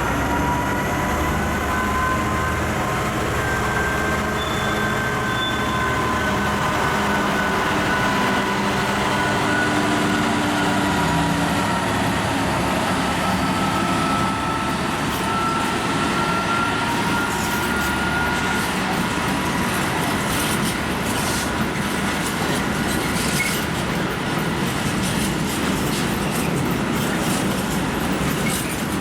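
A train moving along the station tracks: a steady running noise with high drawn-out tones that slowly drift in pitch, like wheels squealing. From about halfway on, many short clicks of wheels over the rail joints come in.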